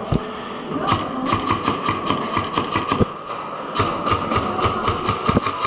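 Airsoft electric guns firing rapid strings of shots, about seven cracks a second, in two runs: from about a second in to three seconds, and again from near four seconds on.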